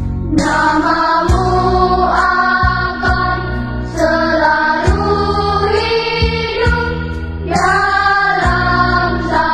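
Background music: a song with sung vocals over steady accompaniment, in phrases a second or two long.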